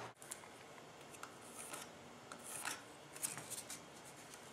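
Faint handling of a thin wooden strip being held against a block and marked with a pencil: soft rubbing and scratching with a few light clicks scattered through.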